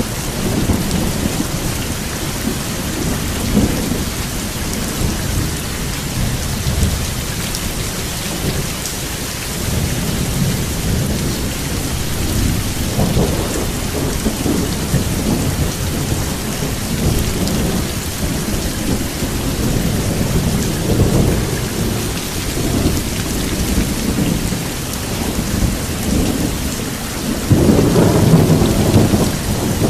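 Steady rain with thunder rumbling low throughout, and a louder roll of thunder near the end.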